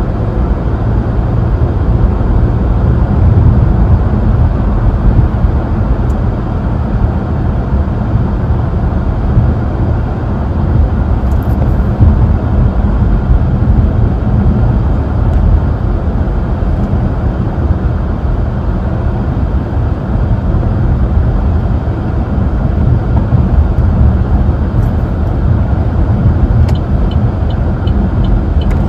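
Car cabin road noise while driving: a steady low rumble of engine and tyres. Near the end a fast, even ticking starts up.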